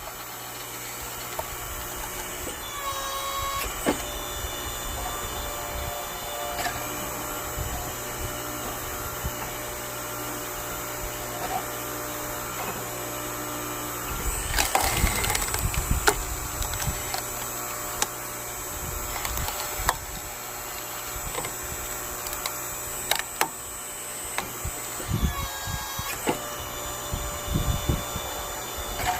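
8-ton hydraulic log splitter running with a steady motor hum while it forces logs apart, the wood cracking and splintering as it splits. The loudest cracking comes about fifteen seconds in and again near twenty-five seconds.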